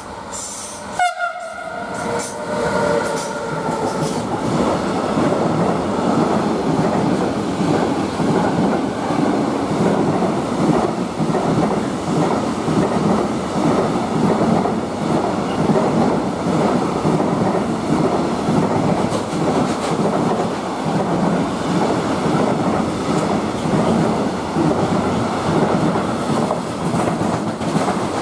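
An electric freight locomotive sounds its horn about a second in, the held tone fading over the next few seconds, as a long container freight train passes through at speed. The steady rumble and rattle of the wagons running by on the rails fills the rest.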